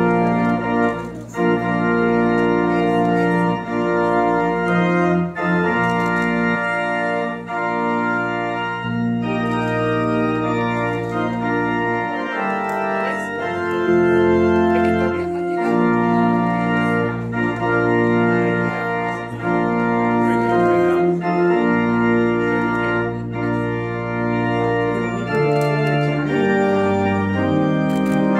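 Church organ starts playing and continues with full, sustained chords over a bass line that moves every second or two.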